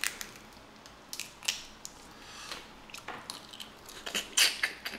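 Boiled crawfish being cracked and peeled by hand, with scattered short shell cracks and wet crackles close to the microphone. A few louder wet bursts come near the end as one is put to the mouth and eaten.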